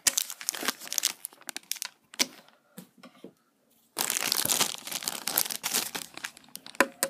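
Clear plastic bag crinkling and rustling as it is handled, in two bouts with a short pause in the middle; the second bout, about four seconds in, is the densest and loudest, and a few sharp crackles come near the end.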